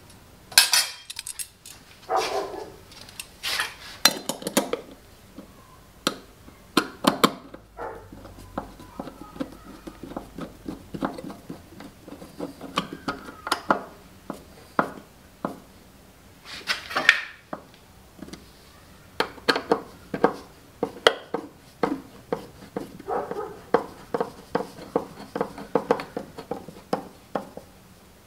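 A hand screwdriver driving the screws of a metal cover plate into a steel switch box: sharp metal clinks and taps, with runs of quick ticking and scraping as the screws turn.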